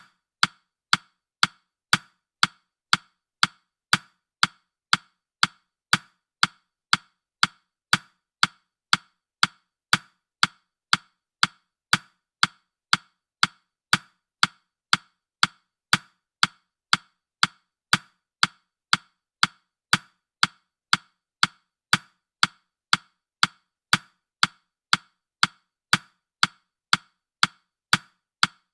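Countdown timer's ticking-clock sound: a sharp, woody tick about twice a second, evenly spaced and unchanging.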